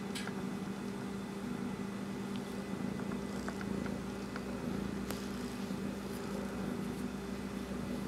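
Domestic cat purring while being stroked on a lap, over a steady low hum.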